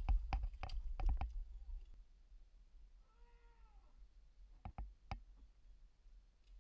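A quick run of sharp clicks and knocks over a low rumble, then a short squeak that rises and falls in pitch, then a few more clicks.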